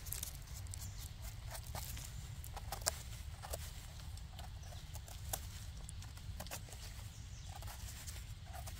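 Footsteps crunching irregularly through leaf litter and twigs on a forest floor, with scattered small snaps and crackles over a low steady rumble.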